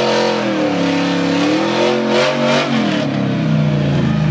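A Pontiac Firebird's engine revving up and down, then dropping to a lower steady note about three seconds in.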